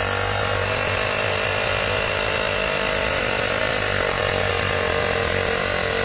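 Windek RCP-D23A 12 V car air compressor running steadily, inflating a football through its hose.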